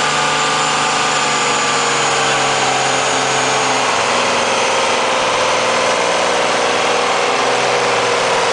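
Vintage tractor engine running steadily at low revs as the tractor moves slowly along; the engine note drops slightly lower in the second half.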